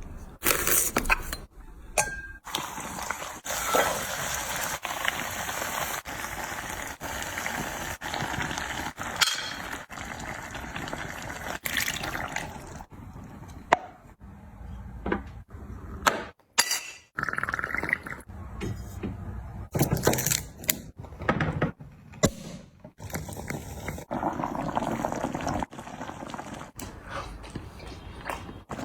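Kitchen food-preparation sounds: liquid pouring and dripping, with dishes and utensils clinking. The sound changes abruptly every second or two, with short clicks and knocks between stretches of pouring.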